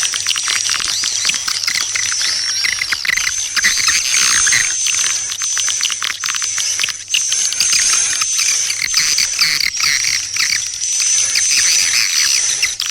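Swiftlet lure call: dense, rapid twittering and clicking chirps of swiftlets over a steady high whistle-like tone. This is the kind of calling sound played from speakers in a swiftlet nesting house to draw the birds in.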